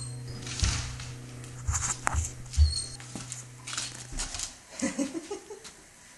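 Shiba Inu jumping up against a door, with several short thumps and scrabbling of paws in the first few seconds, then a few short whines about five seconds in.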